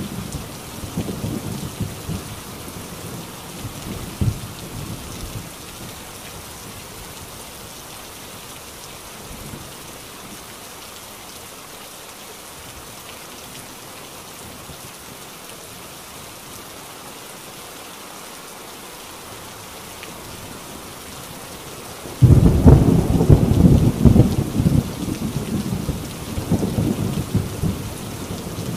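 Heavy rain on a tin roof, a steady hiss. Thunder rumbles die away in the first few seconds. About three-quarters of the way through, a sudden loud thunderclap breaks in and keeps rumbling.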